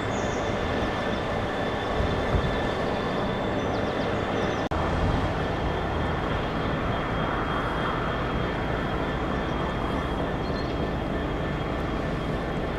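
Train running past on the line: a steady noise of wheels on rails with a faint high steady tone over it, broken by a brief dropout a little under five seconds in.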